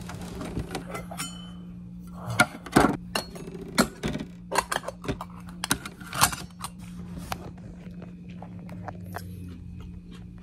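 Stainless steel bowl lids and bowls clinking and knocking as the lids are lifted off a metal meal tray and set down, a string of sharp metal clinks, some briefly ringing, over a steady low hum.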